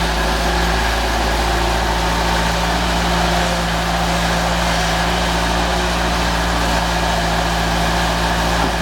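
Kubota four-cylinder diesel engine of a Bobcat 763G skid-steer loader running steadily at an even speed.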